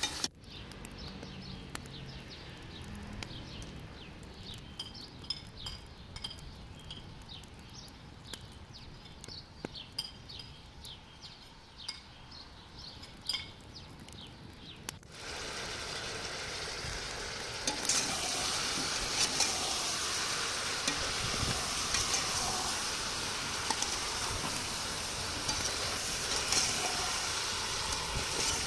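Meat and onion chunks frying in a stainless steel pot, stirred with a metal slotted spoon. The first half is quieter, with scattered clicks of the spoon against the pot. About halfway through, a loud steady sizzle starts.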